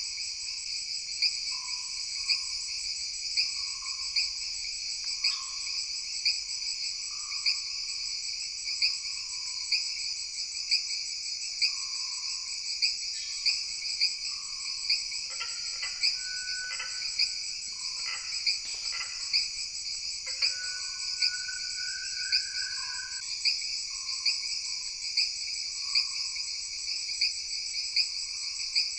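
Dense night chorus of tropical rainforest insects trilling steadily and shrilly, with a sharp pulse a little more than once a second. Frogs call in a lower pitch every second or two. For several seconds in the middle, other calls join in, one a brief rising whistle.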